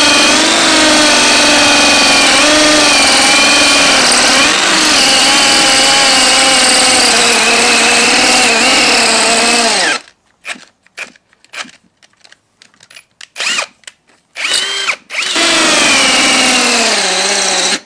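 Ryobi P251 brushless cordless hammer drill boring a masonry bit into a concrete block. It runs steadily for about ten seconds, then gives a string of short stop-start trigger bursts, then runs steadily again and winds down in pitch just before the end.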